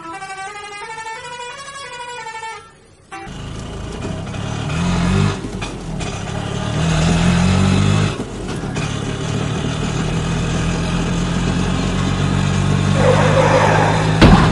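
A wailing siren sound with rising and falling pitch for about three seconds, then a dubbed heavy truck engine sound effect running and revving, with a sharp bang near the end.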